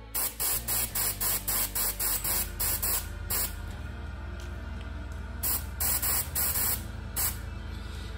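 Airbrush spraying in short hissing bursts, about three a second, pausing for a couple of seconds in the middle before starting again: the trigger being pressed and released in quick dabs.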